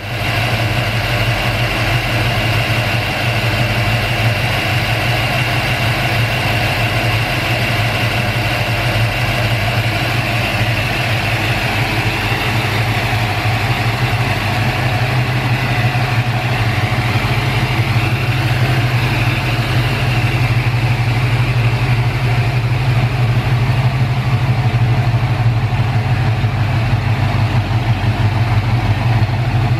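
1956 Chevrolet Corvette's 265 cubic-inch V8 idling steadily.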